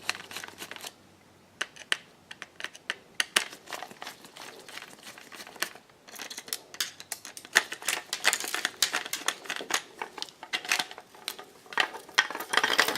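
Small clicks, taps and rustles of a digital kitchen scale's parts being handled during disassembly, sparse at first and busier from about halfway.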